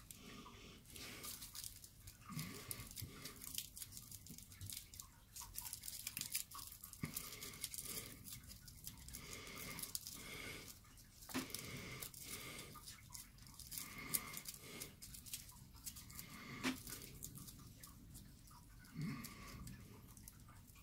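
Aluminium foil being crumpled and squeezed into shape by hand, a soft, irregular crinkling and crackling.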